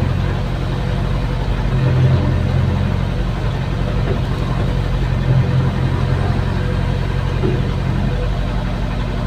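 Caterpillar hydraulic excavator's diesel engine running steadily as the boom and bucket dig, heard from inside the cab, its low drone swelling briefly about two seconds in and again past five seconds.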